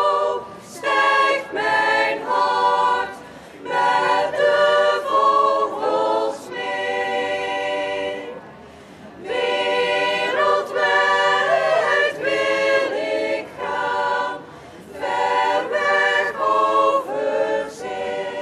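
Women's choir singing a cappella in several phrases, breaking off briefly between them, with a longer pause about eight seconds in.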